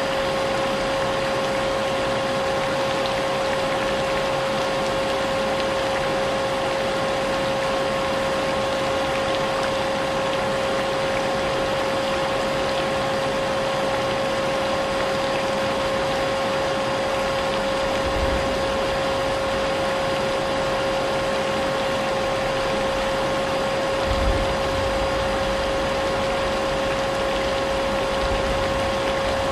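Vacuum cleaner running steadily, its motor holding one constant whine over a hiss, mixed with the sound of rain. Brief low rumbles come in about two-thirds of the way through and again near the end.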